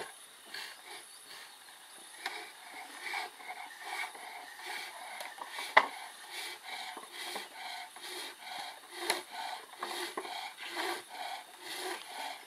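Foot-powered pole lathes turning green wood: hand turning tools cutting the spinning wood in short strokes, about two a second, as the treadle drives each cut. A few sharp knocks are mixed in, the loudest about six seconds in.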